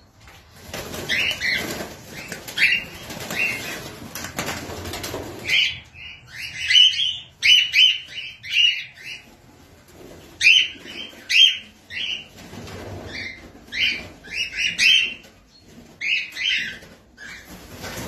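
A flock of cockatiels calling: many short, high chirps coming in quick runs, loudest through the middle. Wings flap during the first few seconds.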